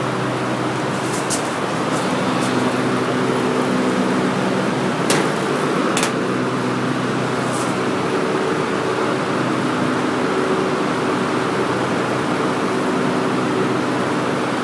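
Daikin packaged air conditioner running: a steady rush of fan air over a constant machine hum, with a few light clicks in the first half.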